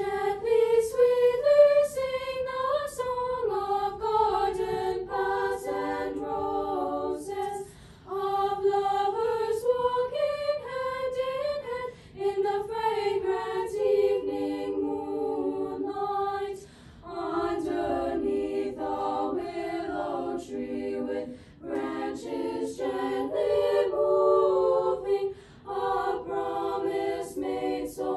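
A small girls' vocal ensemble of six voices singing a cappella in close harmony, in sustained phrases with short breaks for breath every few seconds.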